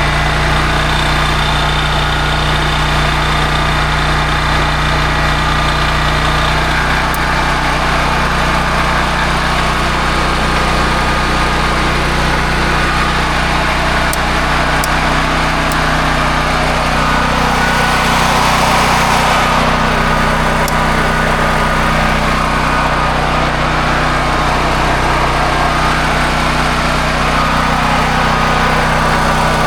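Honda EB5000X portable gas generator's single-cylinder engine running steadily. A little past halfway its note shifts and it gets slightly louder.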